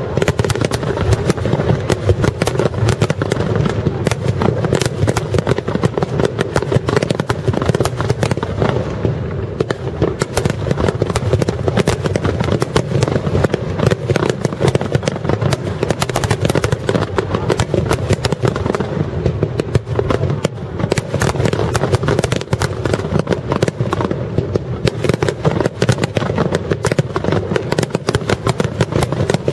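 Aerial fireworks shells bursting in a rapid-fire barrage. Sharp cracks follow one another with no break, over a constant low rumble of overlapping booms.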